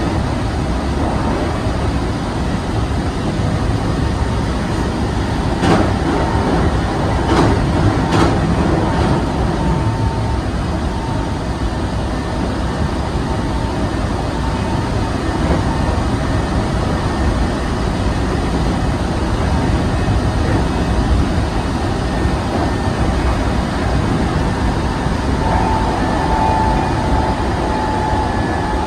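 Hankyu 7000-series electric train running at speed, a steady rumble of wheels on rail heard from inside the front car. A few sharp clicks come about six to eight seconds in, and a faint steady tone rises near the end.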